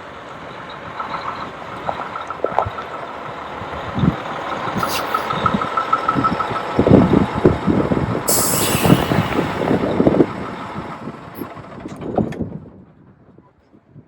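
Heavy diesel truck running and growing louder, with a short burst of air-brake hiss about eight seconds in; the sound cuts off abruptly near the end.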